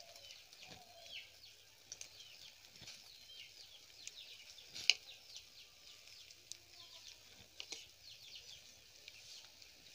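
Faint, light sizzling of egg and a bread slice frying in a little oil in a kadai, with a few small clicks, the clearest near the middle.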